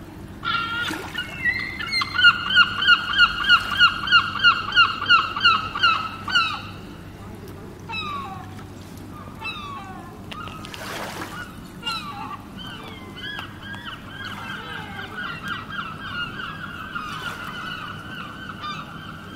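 A bird calling: a loud, fast series of repeated pitched notes, about four a second for some four seconds. More calls follow, then a second, softer run of repeated notes near the end.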